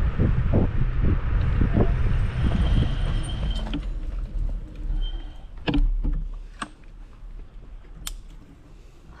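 Wind rumbling on the microphone and jolting knocks from an electric scooter riding over rough ground, easing off about four seconds in. A few sharp clicks and rattles follow.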